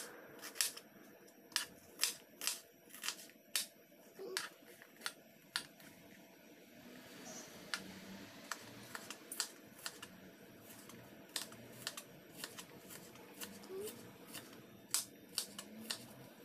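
Kitchen knife chopping an onion on a plastic cutting board: an irregular series of sharp taps as the blade strikes the board, thinning out for a few seconds in the middle.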